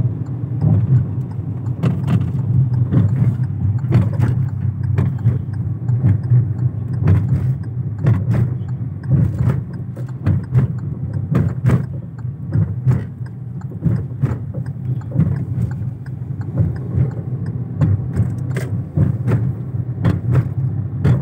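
Car driving, with a steady low road and engine rumble and frequent irregular clicks and rattles.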